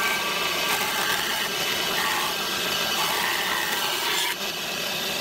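A power tool working wood, running steadily with a slight change about four seconds in.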